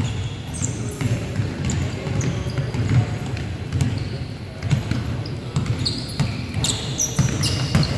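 Basketball bouncing on a hardwood gym floor during a pickup game, with players' footsteps, and short high-pitched sneaker squeaks on the wood several times near the end.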